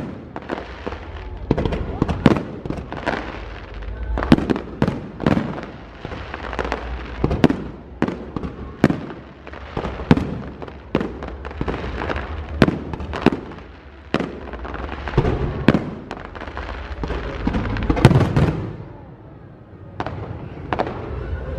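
Aerial fireworks display: a rapid, irregular series of shell bursts, sharp bangs and booms following one another every half second or so, with the loudest cluster of bangs about 18 seconds in.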